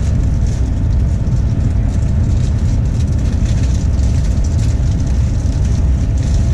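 Steady low rumble of a moving vehicle heard from inside, with no break or change in level.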